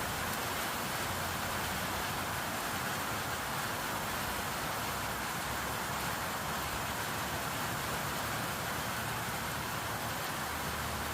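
Steady rain falling and pattering on surfaces, an even hiss without pauses.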